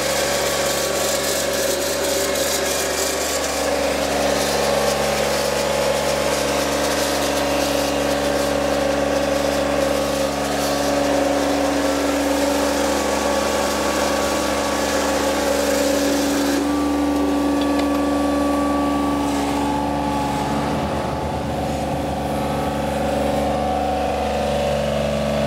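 The Yanmar 3TNE82A three-cylinder diesel engine of a John Deere 3215B fairway mower running steadily. A hiss over the engine note drops away about two-thirds of the way through.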